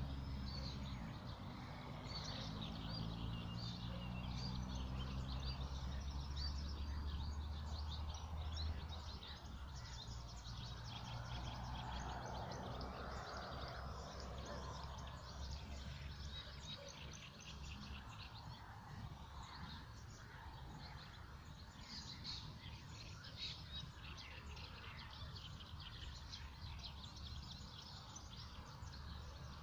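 Several wild birds chirping and singing, with many short calls throughout. A low steady hum lies under them for the first several seconds, then fades out.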